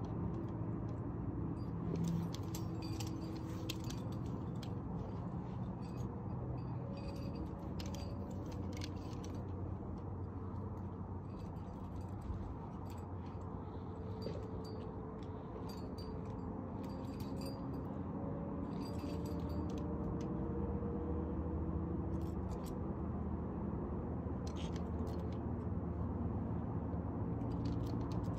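Climbing gear, carabiners and cams on a harness rack, clinking and jangling in short bursts every few seconds over a steady low rumble.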